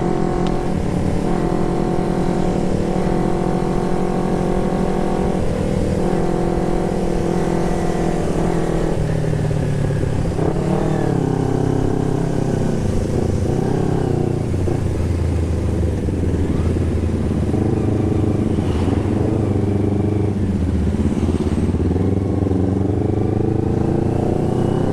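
Carburetted Kawasaki Ninja 250's parallel-twin engine running through a Termignoni aftermarket exhaust while being ridden. The note holds steady for the first eight seconds or so, then rises and falls in pitch several times with the throttle, climbing again near the end.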